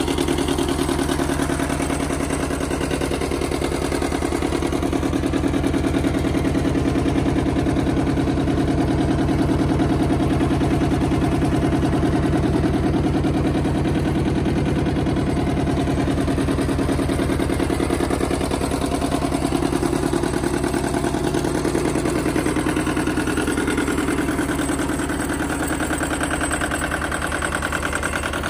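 Yanmar YM1300D compact tractor's two-cylinder diesel engine running steadily at a constant speed.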